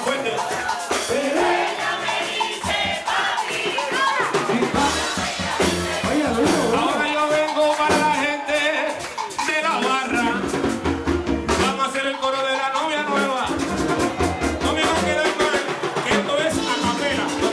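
Live Puerto Rican plena: a man's lead vocal through a microphone over a driving rhythm of hand drums and shaker percussion.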